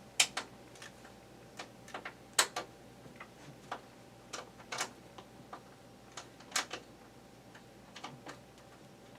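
A screwdriver turning a screw out of a box fan's rear cover: a string of sharp, irregular clicks and taps, a few louder than the rest.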